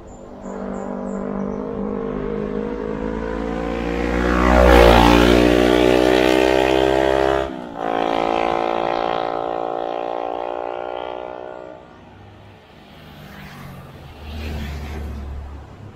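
A motor vehicle's engine passing close, growing louder and then dropping in pitch as it goes by. After a brief sharp break the engine note carries on and fades away. A smaller engine swell comes near the end.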